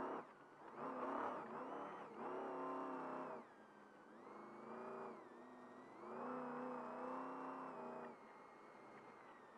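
The Trophy Truck's race engine, heard from inside the cab, pulls hard in four throttle bursts of about a second or two each, dropping off sharply between them as the truck accelerates. A steady high whine runs underneath.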